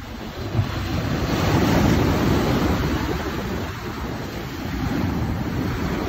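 Sea waves breaking and washing around a rock breakwater, a rushing surf that swells to its loudest about two seconds in, then eases and builds again. Wind buffets the microphone with a low rumble.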